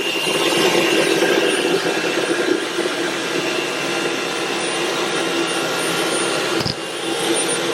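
Dyson V11 Torque cordless stick vacuum running with its main motorised brush-bar nozzle: a steady whir with a thin high whine. A brief knock sounds about seven seconds in.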